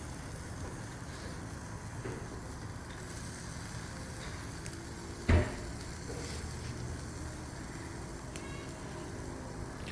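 Fish sizzling on a hot charcoal grill, a steady hiss, with one brief loud sound about five seconds in.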